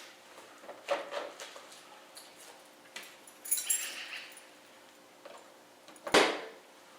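Scattered metal clicks and clunks from a car trunk lid and latch being worked, with a short metallic jingle midway and one loud thump about six seconds in.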